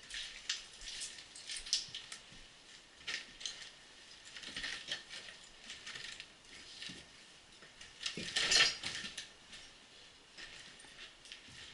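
Footsteps crunching and scraping over rubble, broken bricks and loose planks, in irregular steps, the loudest a little past the middle.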